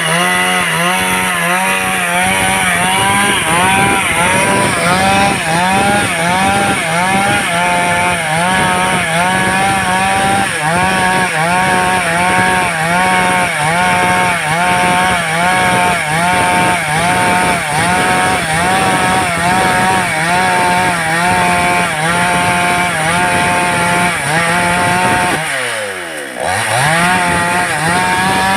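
Stihl-replica chainsaw with a 24-inch guide bar running under load while cutting wood into lumber. The engine note rises and falls over and over in a steady rhythm. Near the end it briefly drops in pitch and level, then picks back up.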